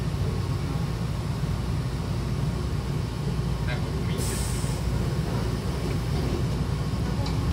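Train's pneumatic double sliding doors closing: a short hiss of air about four seconds in as the doors start to move, then a knock near the end as the two leaves meet, over the steady low hum of the stopped train.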